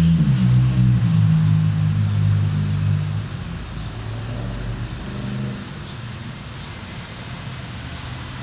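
A motor vehicle's engine running nearby: a steady low hum that dips slightly in pitch just after the start and grows quieter after about three seconds, carrying on more softly.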